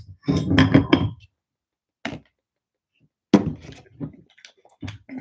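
Glass hot-sauce bottle and jar being handled while sauce is shaken out: a few separate thunks and clinks, a short knock about two seconds in and a sharper one a second later, with quiet gaps between.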